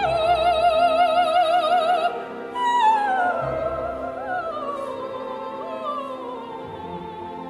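Recorded operatic soprano singing with orchestral accompaniment: a high note held with a wide vibrato for about two seconds, then after a short break a new phrase that starts higher and descends slowly, growing quieter toward the end.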